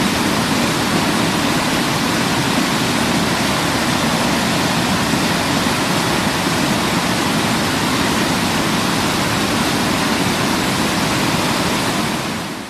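Waterfall crashing: a loud, steady rush of falling water that fades out near the end.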